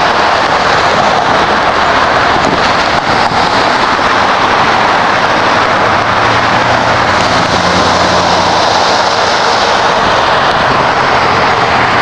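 Steady rush of freeway traffic and tyre noise, with a heavier vehicle's low engine drone passing through for a few seconds past the middle.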